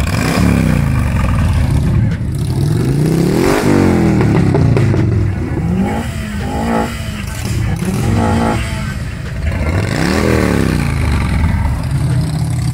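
Several cars driving past one after another, their engine notes rising and falling repeatedly as each one accelerates and goes by, with sharp drops in pitch as cars pass.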